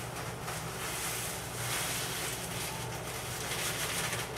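Crushed Wheaties and Rice Chex crumbs shaken out of a plastic bag onto a plate: a rustle of the bag and the crumbs that swells and eases, over a low steady hum.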